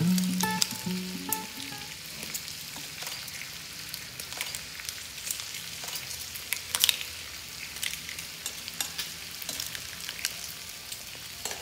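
Clams cooking in sake in a ceramic pot, sizzling steadily with scattered sharp crackles and pops, one louder pop about seven seconds in. Background music fades out in the first couple of seconds.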